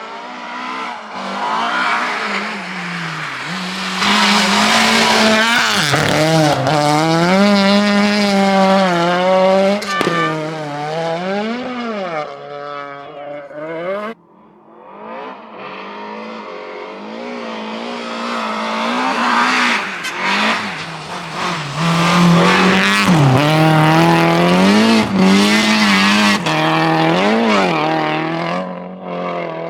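Rally cars running flat out on a special stage, engine pitch climbing and dropping again and again through gear changes. The first car's sound cuts off suddenly about halfway through, and a second car builds up and passes.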